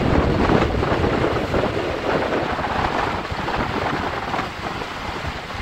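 Wind buffeting the microphone while riding in an open vehicle: a steady rushing noise with a low rumble, easing a little toward the end.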